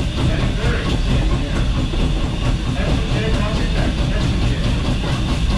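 Steam-hauled passenger train under way, heard from an open car coupled right against Norfolk & Western 611, a 4-8-4 steam locomotive: a steady, loud rumble of the running train and its wheels on the rails.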